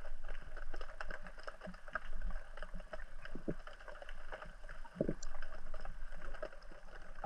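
Underwater ambience heard through a camera's waterproof housing: a low steady hum with scattered faint crackling clicks, and two louder knocks, about three and a half and five seconds in.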